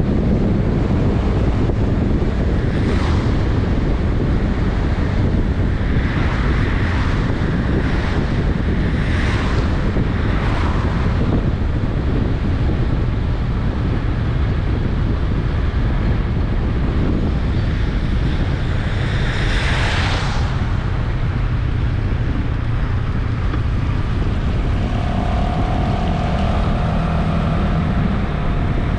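Steady wind rumble on the microphone while riding a Honda Vision 110cc scooter, mixed with road noise. A few brief swells of hiss rise and fall over it, the loudest about twenty seconds in.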